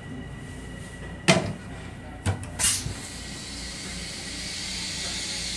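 A toilet seat drops shut onto the bowl with a loud clack about a second in, followed by a lighter click a second later. Then the flush starts: rinse water hisses into the stainless steel bowl of a commuter-train toilet, building steadily, over the low rumble of the railcar.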